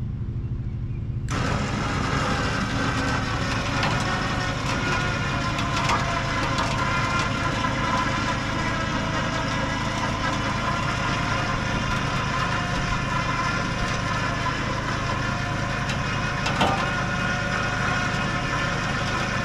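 An electric winch switches on about a second in and runs steadily under load, hauling a steel trailer chassis up onto its side, with a couple of short clanks from the frame. Under it, a vehicle engine idles.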